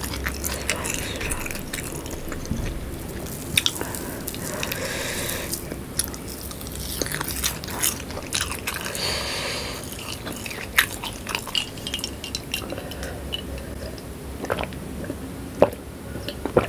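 Close-miked biting and chewing of sambal with whole shallots: wet, crunchy mouth sounds broken by a few sharp clicks.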